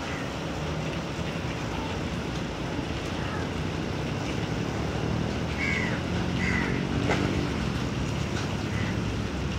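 A steady low mechanical hum, with a few short high chirps about halfway through.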